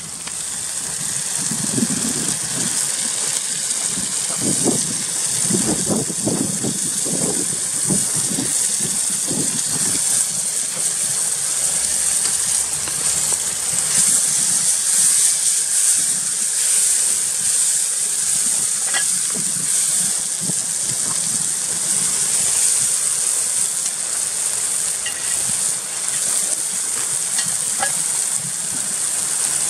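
Tomato sauce sizzling in a frying pan over a campfire, a steady hiss throughout. Stirring noises churn underneath during the first ten seconds or so.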